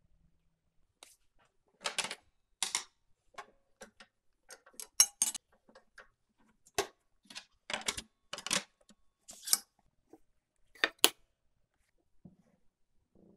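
About a dozen short, sharp knocks and metallic clinks at irregular intervals, the loudest a few seconds in and near the end: hand-handling of oak boards and of the table saw's removed throat plate and riving knife. The saw motor is not running.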